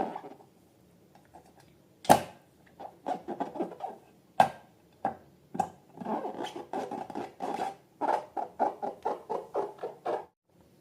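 Slime being squished and worked by hand: irregular clicks and small pops, with a sharp snap about two seconds in and another a little after four seconds, then quick runs of crackling clicks of about four to five a second.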